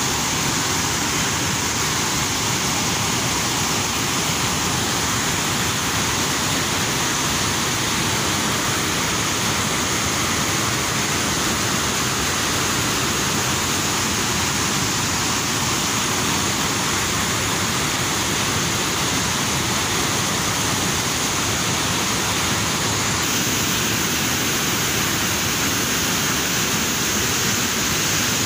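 Steady rush of white water cascading over rock shelves in river rapids, an even wash of noise that holds at one level throughout.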